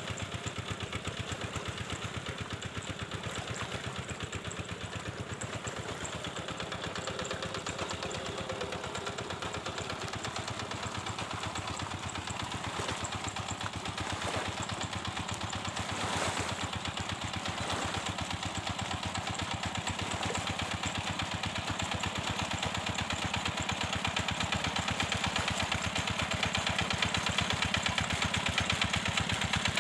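Two-wheel hand tractor's single-cylinder diesel engine running steadily under load while working a flooded rice paddy, a fast even beat that grows louder over the last several seconds as the tractor comes nearer.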